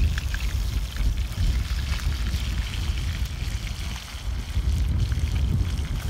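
Wind rumbling on the microphone over the steady sizzle of fish frying in a pan over a campfire, with a few light clicks of metal tongs against the pan.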